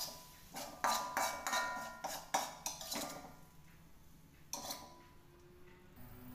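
A metal spatula scraping and clanking against a wok and a glass bowl while fried sambal is scraped out, a quick run of ringing clanks in the first three seconds and one more about four and a half seconds in.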